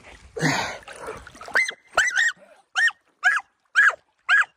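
A splash of water near the start, then a dog giving short, high-pitched yelping barks, about two a second. The dog is anxious because its owner has dived under while swimming, and it takes him for drowning.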